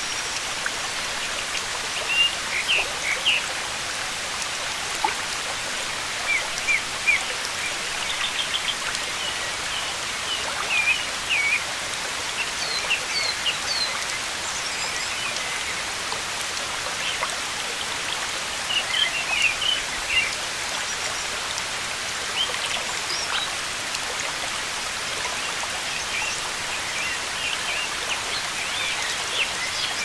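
Nature ambience: a steady hiss of water with songbirds chirping in short clusters of a few high notes every few seconds.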